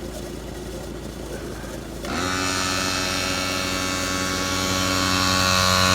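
A Jeep engine idling low, then about two seconds in a portable electric tire pump switches on with a steady buzzing hum, growing slightly louder as it inflates a flat tire.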